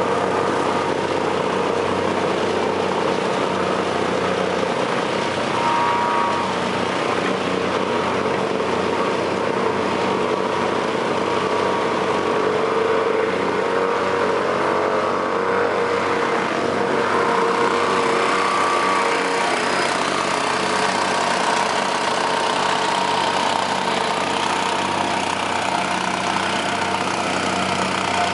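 Asphalt paver's diesel engine running steadily at a constant pitch.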